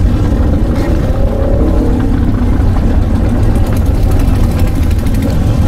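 V-twin motorcycle engine running loud and low as the bike rolls past, its pitch rising and falling about one to three seconds in.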